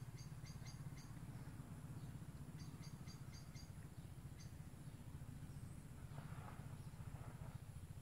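Faint outdoor ambience: a steady low hum with two short runs of quick, high, evenly spaced chirps, about five a second, in the first half.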